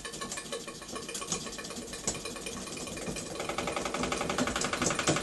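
Small model steam engine (Märklin 4097 engine unit) running fast under steam, winding the rope drum, with a rapid, even knocking that grows louder a little over halfway through. The banging comes from the engine's eccentric, which the owner is replacing.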